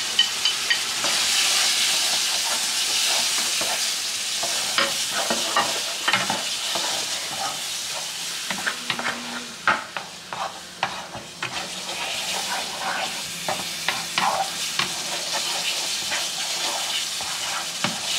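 Minced-meat bolognese sauce sizzling in a frying pan as it is stirred with a wooden utensil, which scrapes and clicks against the pan many times over a steady frying hiss.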